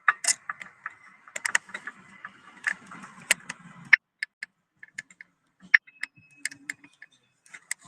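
Computer keyboard typing and clicking in irregular short runs, busier in the first few seconds and sparser later.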